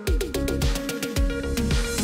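Electronic dance music with a steady kick-drum beat.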